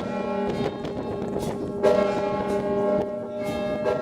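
Church bells of the Santuario Madonna del Rosario ringing. Heavy strokes come about every two seconds, with lighter strokes between, and each one rings on into the next.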